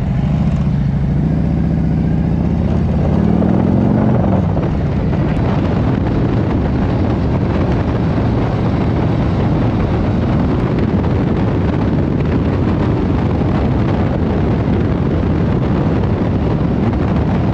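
Harley-Davidson motorcycle engine pulling away, its pitch rising over the first few seconds, then running steadily at road speed under a constant rush of wind and road noise.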